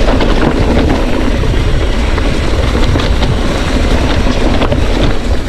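Mountain bike rolling downhill over a rough dirt trail: continuous tyre and rattle noise with scattered clicks and knocks, over a heavy low rumble on the microphone.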